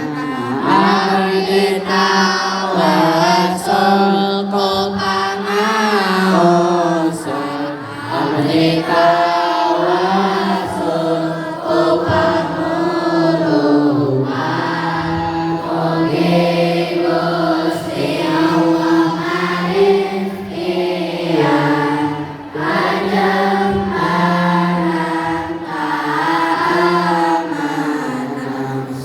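A voice chanting a melody in long, wavering held notes, with short breaks between phrases.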